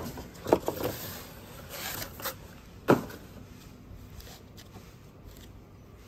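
Unpacking noises from a boxed garden table: a few sharp knocks, the loudest at the start and another about three seconds in, with some rustling of packaging between them.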